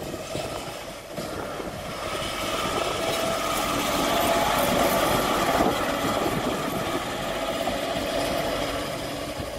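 Small narrow-gauge diesel locomotive, a converted DMOT rail car, running past close by. Its engine grows louder over the first few seconds, then slowly fades as it moves away.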